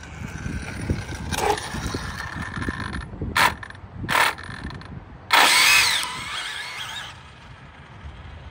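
Arrma Limitless RC speed car's brushless motor, running on 8S through a Hobbywing Max4 ESC, whining in three short throttle blips. It then whines in a longer, louder burst with a pitch that sweeps as the car accelerates away, at roughly quarter throttle.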